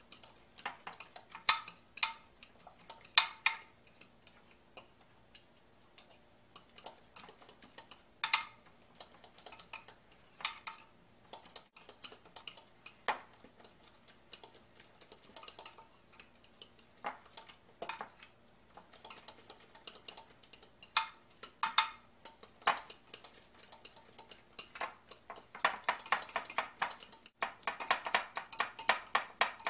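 Metal utensil clinking against a bowl while mixing eggs with chopped herbs: scattered taps and scrapes, turning into quick, steady beating strokes near the end.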